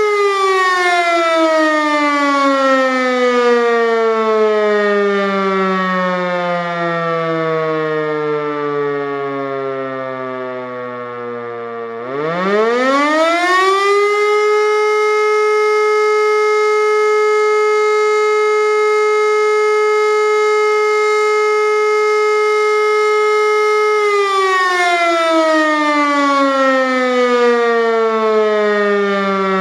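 German E57 motor siren sounding the fire-brigade alarm signal. The tone sinks steadily as the rotor coasts with the power off. About twelve seconds in it rises quickly back to a steady wail, holds for about ten seconds, then starts falling away again as the next pause begins.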